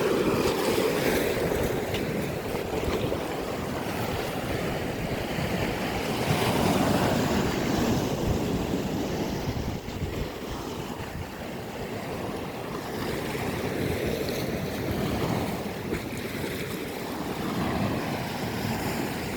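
Sea waves washing onto the shore, swelling and easing every few seconds, with wind rumbling on the microphone.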